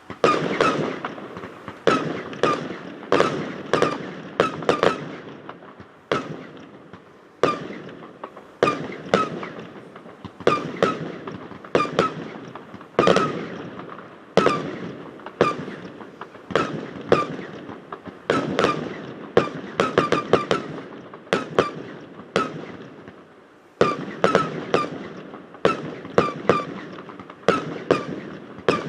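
Fireworks exploding in a rapid string of sharp bangs, about one to two a second. Each bang trails a ringing echo off a metal hangar, which gives the display an odd sound.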